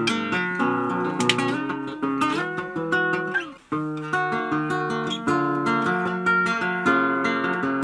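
Nylon-string classical guitar played by hand, plucked notes and chords, with a brief stop about three and a half seconds in.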